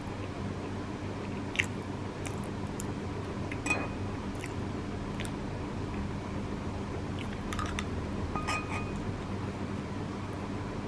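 A person eating chestnut from a bowl: quiet chewing, with a metal spoon clinking and scraping against the ceramic bowl a dozen or so times, the sharpest clinks about one and a half, four and eight and a half seconds in, over a steady low hum.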